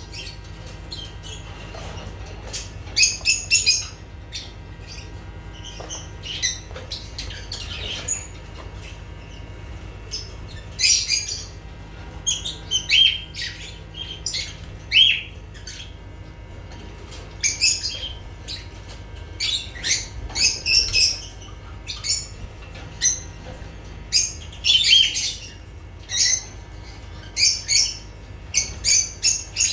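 Lovebirds calling in short clusters of sharp, high-pitched calls, a new cluster every second or two, over a steady low hum.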